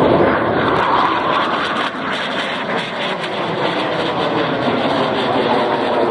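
Jet noise from a Swiss Air Force F-5E Tiger II's twin J85 afterburning turbojets as the jet climbs past. It is loudest in the first second and a half, then eases off slightly.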